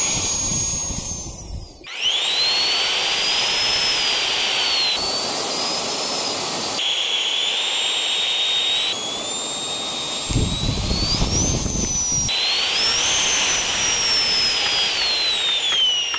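Electric ducted fan of a 3D-printed RC Harrier model running with a high whine, throttled up and down so the pitch rises and falls across several short cut-together stretches. A low rumble joins it for about two seconds past the middle.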